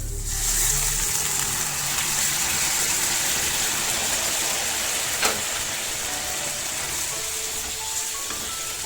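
Boiled chickpeas with their cooking liquid poured into a pan of hot frying masala, setting off a loud sizzling hiss all at once. A sharp knock of a utensil on the pan about five seconds in. Faint background music comes in near the end.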